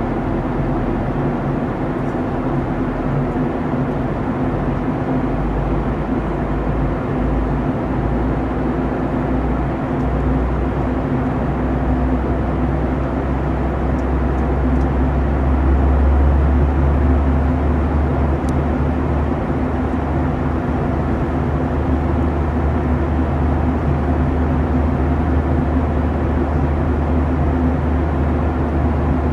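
Steady cabin noise of a Boeing 737-900ER airliner in flight: rushing airflow with the even hum of its CFM56 engines. A deep rumble swells about halfway through, then settles.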